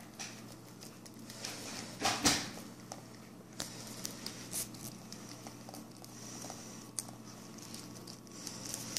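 Puppy chewing and licking a chunk of orange: wet, squishy mouth noises and scattered small clicks, with one louder burst about two seconds in.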